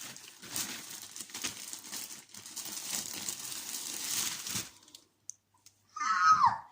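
Packaging crinkling and tearing as a parcel is unwrapped, for about four and a half seconds. After a short pause, a brief loud high-pitched squeal that falls in pitch.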